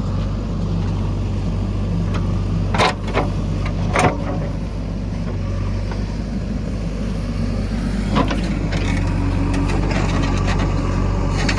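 A heavy diesel engine running steadily, with a few sharp clanks about three, four and eight seconds in.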